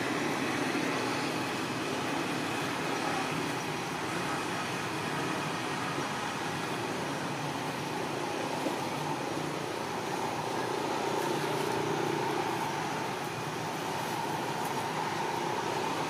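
Steady outdoor background noise: a continuous hum and hiss, like distant road traffic, with no distinct calls or impacts standing out.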